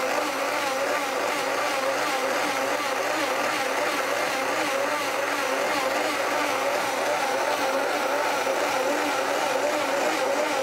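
Blendtec blender running steadily, churning a thick ice cream base of eggs, butter and oils, its motor pitch wavering slightly.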